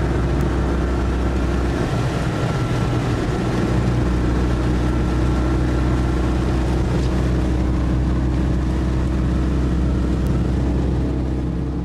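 Car driving, heard from inside the cabin: a steady drone of engine and road noise that begins to fade out at the very end.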